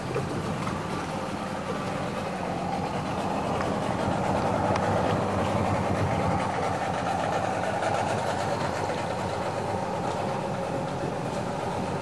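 Boat engine running steadily, growing louder in the middle and easing off toward the end, as if a motorboat is passing on the canal.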